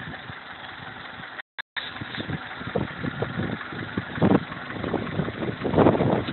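Kia Forte 1.6 L manual's four-cylinder engine idling, with a series of irregular dull knocks, the loudest about four seconds in and again near the end. These are typical of the 'tat' knock the owner hears when the clutch is released in neutral, which has not been cured.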